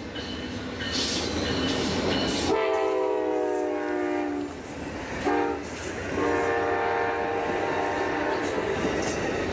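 Toy train's electronic sound effects: a hissing rush at first, then a multi-tone train horn chord held about two seconds, a short blast, and a second long blast starting about six seconds in.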